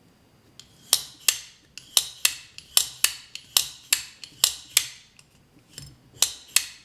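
Cobalt Custom Sug folding knife being flicked open and shut again and again: sharp metallic clicks, often in quick pairs, as the blade snaps out and locks up and is then released and closed. The lock now releases without sticking, after a touch of lube on the blade tang.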